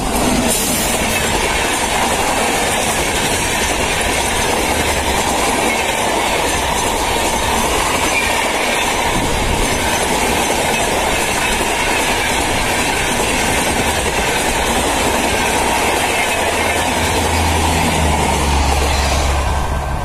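An Indian Railways passenger train of LHB coaches passes close at speed behind a WAP-7 electric locomotive, its wheels running steady and loud on the rails. A deeper low rumble comes in near the end.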